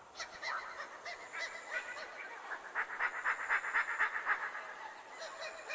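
Animal calls: a run of short, high-pitched calls, several a second, densest and loudest in the second half.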